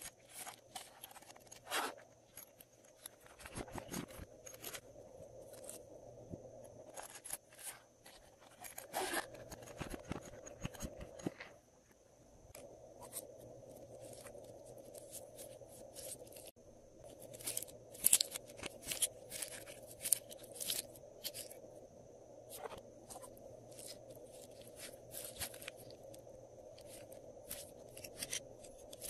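Clear glitter slime being stretched, squeezed and kneaded by hand: irregular sticky clicks, crackles and squelches, with a faint steady hum underneath.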